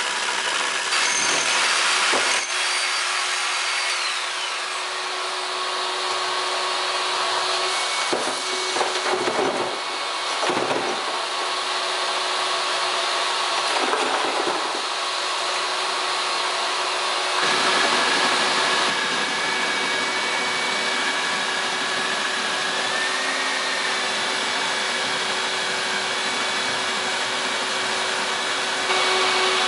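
A vacuum dust extractor runs steadily while power drilling cuts into a wall: a core drill bores a large round hole for a ventilation duct, with the dust drawn off through the vacuum hose. The sound changes abruptly a little over halfway through.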